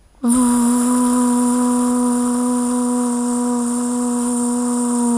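A single steady held tone with overtones, starting suddenly about a quarter-second in and held at one unchanging pitch.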